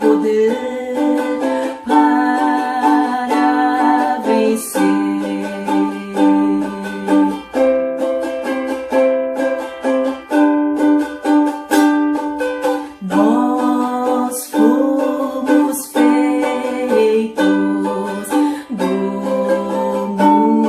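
Ukulele strumming chords through a slow hymn tune, with regular strokes and chord changes about every second or two.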